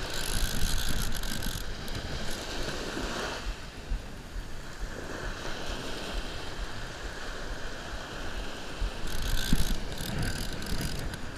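Conventional revolving-spool fishing reel being cranked steadily, winding in a hooked fish that is pulling on the line.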